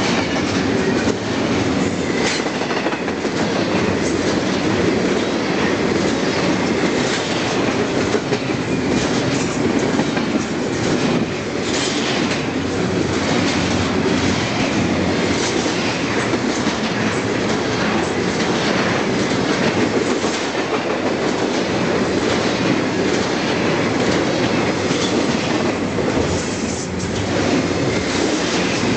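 Double-stack container train's well cars rolling past close by: a steady, loud rumble of steel wheels on rail with repeated clacking as the trucks pass.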